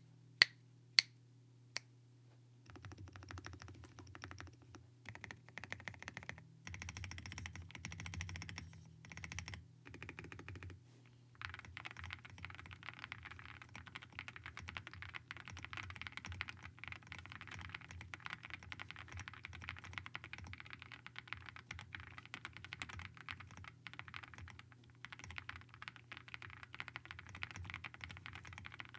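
Typing on a Zoom65 2.0 mechanical keyboard with WS Morandi linear switches, NicePBT keycaps and full foam. A few single sharp clicks open it, then fast typing starts about three seconds in, in short bursts with pauses at first and unbroken from about eleven seconds on.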